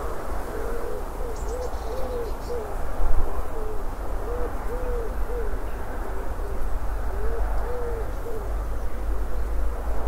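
A dove cooing in three phrases of short soft notes, over a steady low rumble. A few faint high chirps from a small bird come in the first few seconds.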